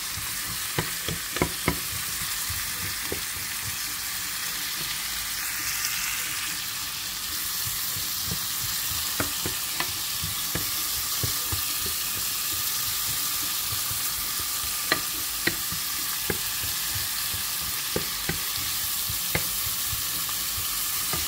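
Chopped onion sizzling steadily as it fries in a frying pan, stirred with a wooden spoon that knocks against the pan every so often.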